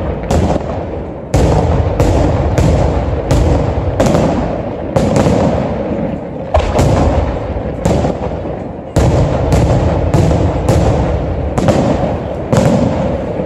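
Aerial firework shells bursting in a rapid barrage, a sharp bang every half second to a second, each trailing off into a long echoing rumble.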